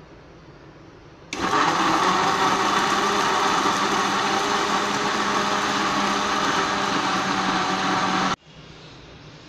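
Electric jug blender switched on about a second in, its motor running steadily for about seven seconds as it blends mango pieces, sugar and milk into a shake, then cut off abruptly.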